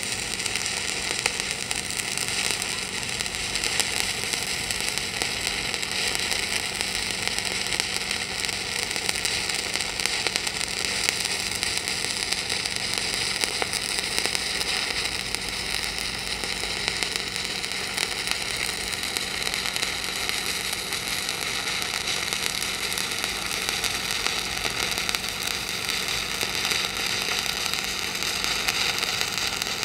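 Shielded metal arc (stick) welding arc burning steadily during a vertical-up stringer pass, an even hiss with no let-up, stopping abruptly at the very end.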